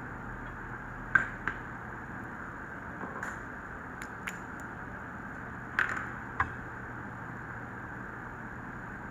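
Light sharp clicks and taps of hard objects, about seven, scattered over a few seconds, over a steady hiss.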